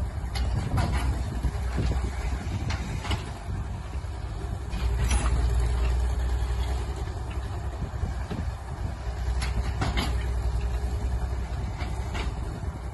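Sleigh train being hauled over snow: a steady low rumble from the towing Caterpillar D6 crawler tractor's diesel, with sharp clanks every second or two from the sleighs' hitches, chains and runners.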